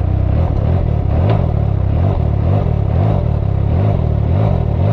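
2021 Can-Am Ryker Rally's Rotax 900 ACE three-cylinder engine, breathing through a Treal Performance aftermarket exhaust, revved in quick repeated blips, rising and falling in pitch about twice a second.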